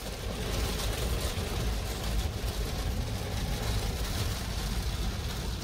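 Heavy rainstorm beating on a car, heard from inside the cabin: a steady hiss of rain and wind over a deep, constant low rumble.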